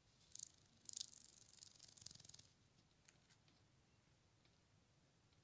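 Near silence with faint scratching close to the microphone: two short scratches about half a second and one second in, then a soft stretch of fine rapid scratching that fades out at about two and a half seconds.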